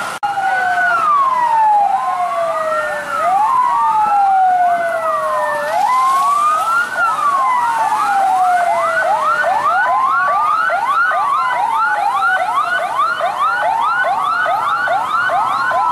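Emergency vehicle sirens: a slow wail falling and rising again every couple of seconds, joined from about the middle by a second siren's fast yelp sweeping up several times a second.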